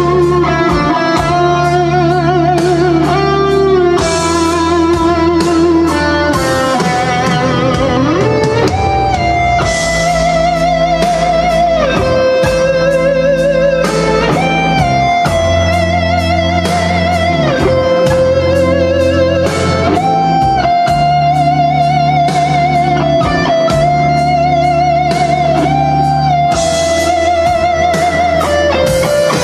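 Instrumental music played over a tube hi-fi system: an electric guitar lead holds long notes with a wavering vibrato over a steady bass line and beat.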